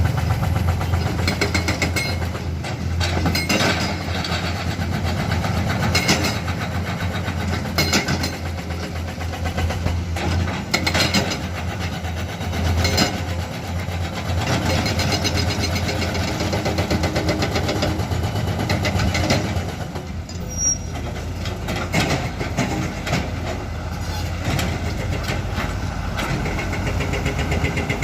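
Heavy diesel excavators and a dump truck running steadily while digging up old asphalt, with irregular knocks and clanks of the work breaking through the engine hum.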